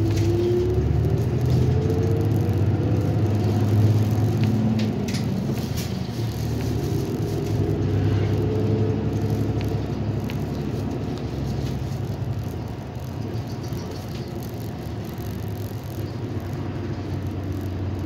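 City bus engine and drivetrain running as the bus pulls away and gathers speed, heard inside the cabin: a low rumble under a whine that rises in pitch twice, with a few sharp interior rattles in the first few seconds.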